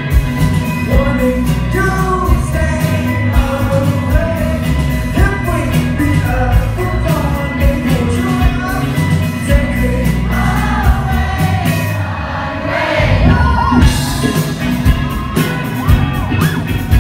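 A live band, electric guitar, bass and drums, plays a pop-rock song with a male singer, heard from the crowd through a phone microphone. The drums drop out for a moment about twelve seconds in, then the beat returns.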